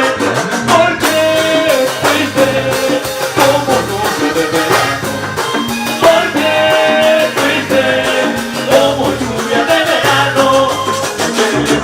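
Latin popular song playing with a steady beat: a bass line and percussion under a melodic lead line.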